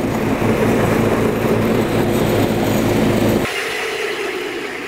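Snowdog tracked snow machine running as it is driven over lake ice: a steady engine drone with rapid clatter from the track. About three and a half seconds in it cuts off abruptly to a quieter steady noise.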